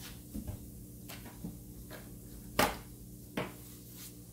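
Cookware being handled on a gas stove: a pot and a glass lid knocking and clacking several times, the loudest a sharp clack about two and a half seconds in, over a low steady hum.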